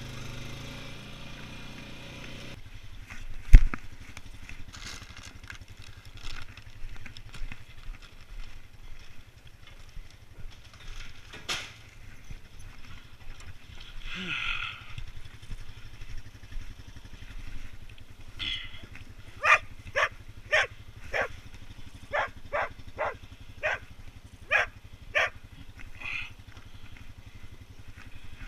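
ATV engine running, then settling to a steady idle after a couple of seconds, with one sharp knock about three and a half seconds in. In the second half a dog barks repeatedly, a dozen or so barks at roughly one to two a second.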